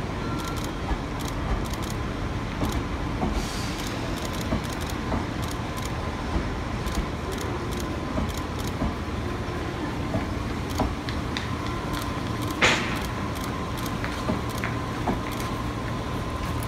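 Meitetsu 3150-series electric cars being towed slowly through a station on a delivery run: a steady rumble of steel wheels with frequent clicks and clanks as they cross rail joints, and one brief louder burst about three-quarters of the way through.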